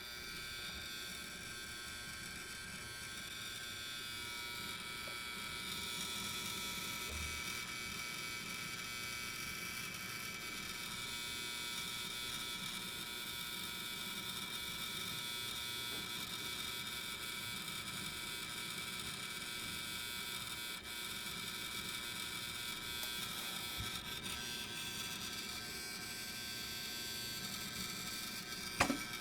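Dell XPS 8920 desktop's hard drive making a steady buzzing whine, with faint scattered ticks and one sharp knock near the end. The owner finds the drive unusually noisy and doubts that it is normal.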